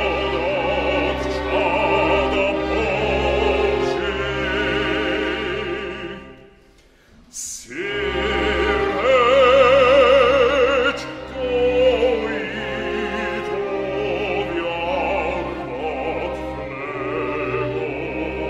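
A bass voice sings with wide vibrato over a string orchestra in a slow classical song. The music dies away about six seconds in. After a brief sharp noise it starts again about a second and a half later.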